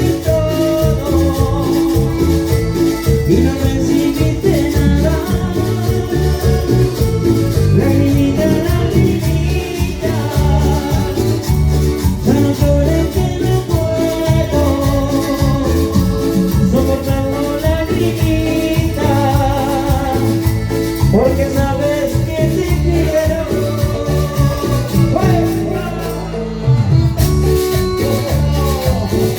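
Cumbia band playing through an amplified sound system: a steady dance beat with a shaker and a melodic lead line. The sound briefly drops out for about a second near the end.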